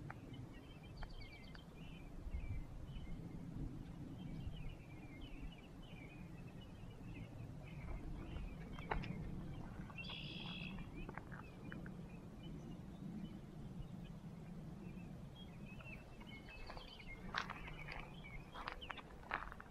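Outdoor ambience: small birds chirping off and on over a low, steady background rumble, with one brighter call about halfway through. Near the end come several crunching steps on gravel.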